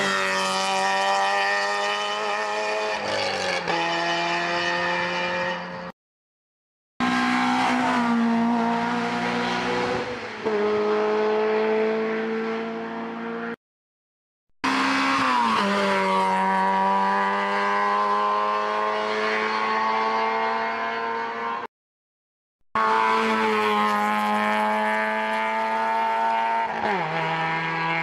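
Rally cars racing uphill past the camera one after another, engines held high in the revs. In each pass the engine note drops sharply at a gear change or lift and then holds again. It comes as four short passes, split by abrupt silent cuts.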